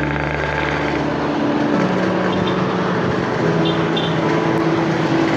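Steady street traffic noise from passing cars and motorbikes. Slow background music with long held notes that change pitch every second or two plays over it.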